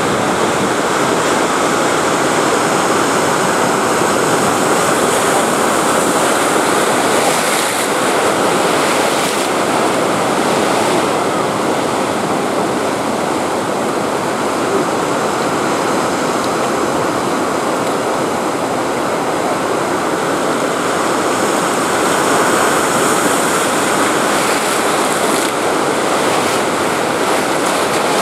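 Steady sound of ocean surf breaking and washing up onto a sandy beach.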